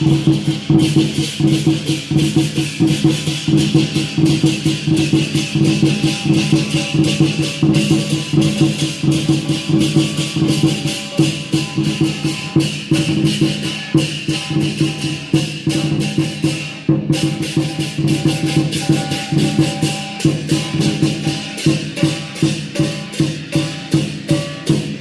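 Lion dance percussion, with drum, clashing cymbals and gong played in a steady, driving beat. The cymbals ring on continuously above the low drum and gong tones.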